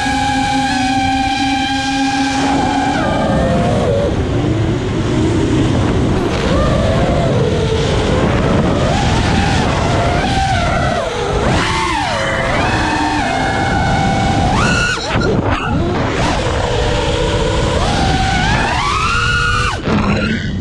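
FPV quadcopter's brushless motors whining, holding one steady pitch for the first few seconds, then rising and falling over and over as the throttle is worked, with a couple of brief drops to low throttle.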